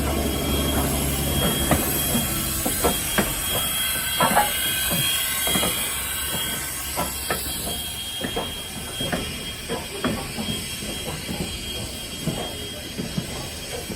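Heritage railway train rolling on jointed track, with irregular clanks and knocks from the wheels and couplings over a steady running noise and a thin, steady high whine. A deep low rumble drops away about a second in, and the sound slowly eases toward the end.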